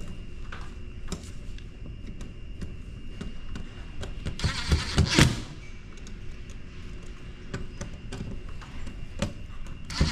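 Hands working wires into a ceiling speaker strobe's terminals: scattered small clicks and a loud scraping rustle about four to five seconds in, with a shorter one near the end.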